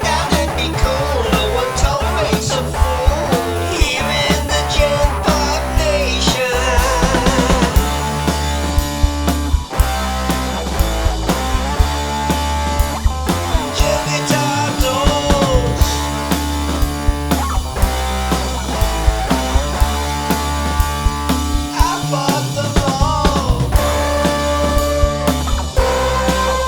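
Rock music with drums, guitar and a steady beat.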